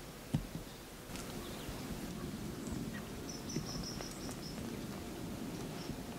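Outdoor field-edge ambience: a steady low noise with scattered faint bird chirps and a short high trill about three seconds in. A soft thump comes just before the steady noise starts.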